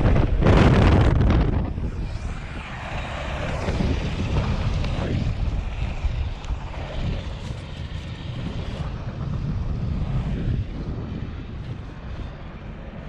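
UH-60 Black Hawk helicopter running, with wind buffeting the microphone. It is loud for the first second and a half, then drops to a lower, steadier rumble.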